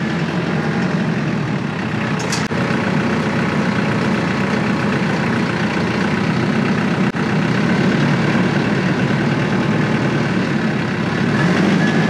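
Engine idling steadily, with a slight change in its low tone near the end.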